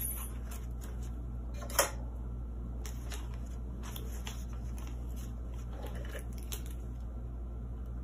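Paper banknotes being handled and slipped into a cash binder's envelope, with soft rustles and one sharp click about two seconds in, over a steady low hum.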